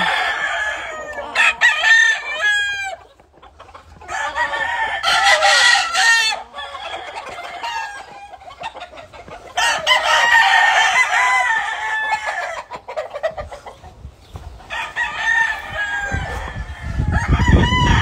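Several gamefowl roosters crowing one after another, a long crow roughly every four to five seconds, with clucking in the gaps. A low rumble comes in near the end.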